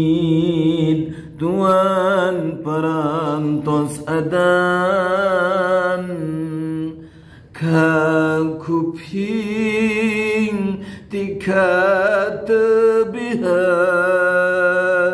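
A man chanting a Sundanese pupujian unaccompanied. He draws out long, ornamented notes that waver in pitch, in several phrases with short breaks between them.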